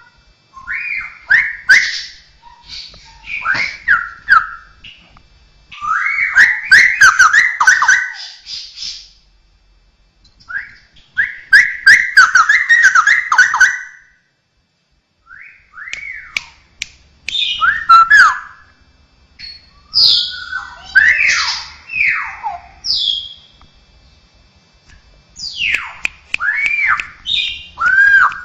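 Straw-headed bulbul (cucakrowo) singing loud, fast runs of rising and falling whistled notes in bursts of a few seconds, with short pauses between phrases.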